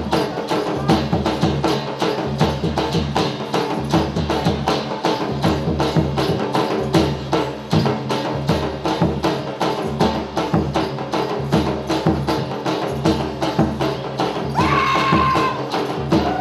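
Gujarati folk dance music driven by a fast, even percussion beat of about four strokes a second. Near the end a held melodic line, sung or played, comes in over the beat.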